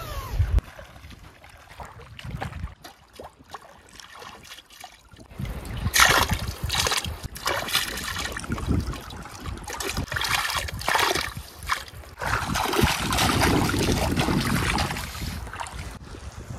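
Shallow river water splashing and sloshing as a steel plate is dipped and swished through it, in a run of loud swishes in the second half.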